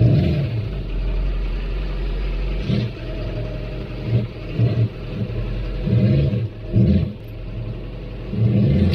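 A vehicle engine running, its revs rising briefly again and again over a steady low hum.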